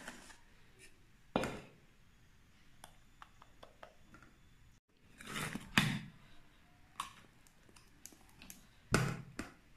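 A few scattered knocks and scrapes of a whisk and mixing bowls as beaten egg whites are tipped into sponge-cake batter and folded in: one about a second and a half in, a longer clatter around five to six seconds, and another near the end.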